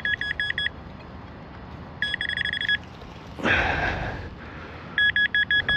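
Metal detector sounding a high target tone as short beeps in three quick bursts, about five beeps in each, as it sweeps over a buried coin, a quarter. About three and a half seconds in, a brief rustling scrape.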